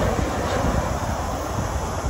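Jet airliner on final approach, its engine noise fading into a steady rumble as it moves away, with wind buffeting the microphone.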